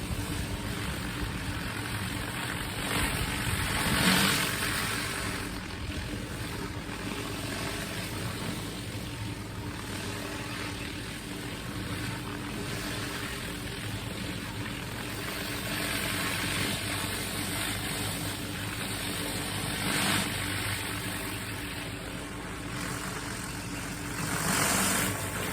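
Pressure washer's engine running steadily under the hiss of its water spray, the spray swelling louder briefly about four seconds in, about twenty seconds in and near the end.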